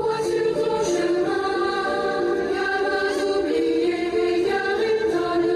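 Music with a choir of voices singing long held notes.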